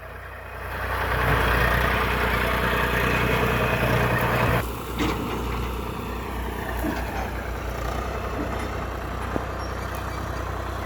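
Diesel engine of a JCB 3DX backhoe loader working under load, rising in the first second and running hard for a few seconds, then dropping back suddenly with a knock about five seconds in and running steadily with a few light clanks.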